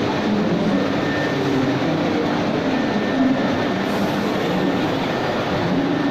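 Large-format digital printing machine running: a steady mechanical noise with no clear beat.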